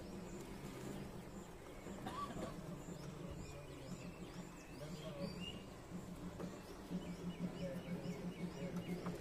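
A diesel engine running steadily, a low even hum, with birds chirping over it; near the end a quick regular run of chirps.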